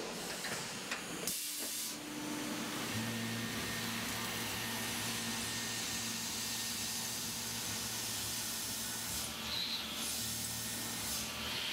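Tormach CNC mill cutting aluminium: a steady hiss of compressed air blowing from a brass nozzle onto the cutter. From about three seconds in, a steady low hum from the spindle and cut runs underneath.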